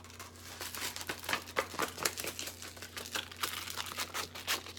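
A sheet of 120-grit sandpaper being folded and creased back and forth by hand, with many irregular crackles of the stiff paper backing.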